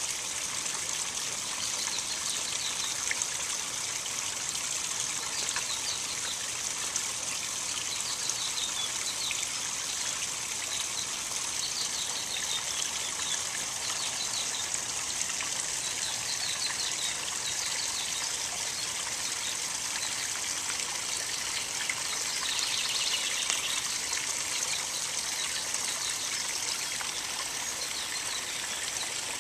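Small waterfalls of a backyard koi pond splashing and trickling steadily into the pond.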